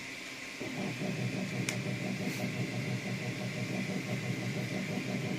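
Anet A8 3D printer running a print: stepper motors whirring over the steady hum of its fans, getting louder about half a second in, with one short click partway through.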